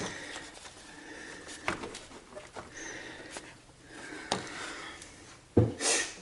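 The plastic fan assembly of a 2007 BMW X5 being worked by hand: scattered clicks and knocks, then a louder thud and a short rustle near the end, as it snags on something that stops it coming up.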